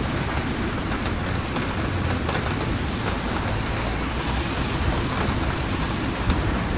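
Steady rain over city street traffic, with car tyres hissing past on the wet road.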